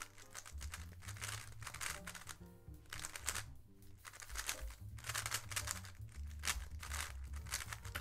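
Background music with a bass line, over the quick, continuous clicking and clacking of a GAN 14 MagLev 3x3 speedcube being turned fast during a timed solve.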